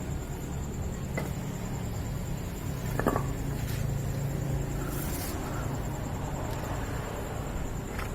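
Car repair workshop ambience: a steady low mechanical hum with a faint high whine, broken by a few sharp clicks and knocks, the loudest about three seconds in.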